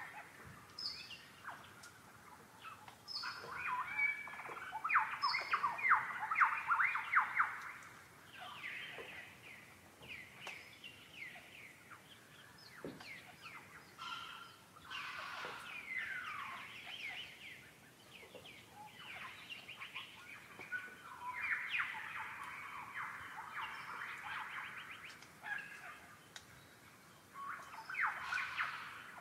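Wild birds calling, with bursts of rapid chattering, laugh-like notes about four seconds in and again after about twenty seconds, and short chirps and falling whistles in between.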